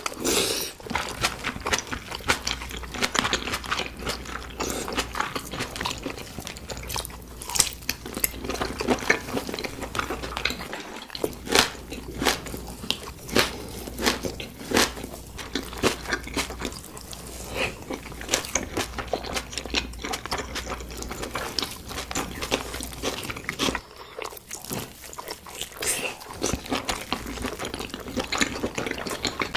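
Close-miked eating of chicken and pork: irregular crunchy bites and wet chewing and smacking, with brief pauses.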